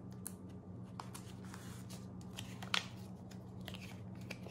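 Plastic binder sleeve and folded paper card list rustling and crinkling as the sheet is slid out of the pocket and unfolded: a scattering of soft crackles, with one sharper snap of the paper a little before the three-second mark, over a faint low hum.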